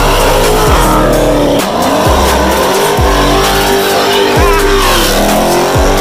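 Dodge Charger's engine revving hard while its rear tires spin and squeal in a burnout. The revs climb and fall back several times.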